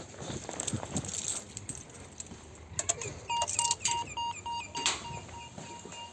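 Rustling and light clattering, then a sharp click and a run of short electronic beeps, about five a second for a couple of seconds, from a ShchLZ passenger elevator's controls.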